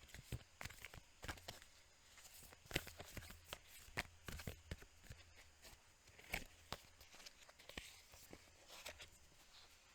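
Oracle cards being shuffled and handled by hand: faint, irregular taps and slaps of card stock.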